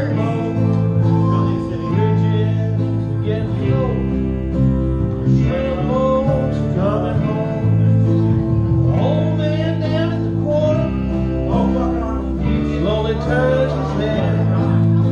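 Live acoustic band: acoustic guitars strumming chords while a man sings the melody into a microphone.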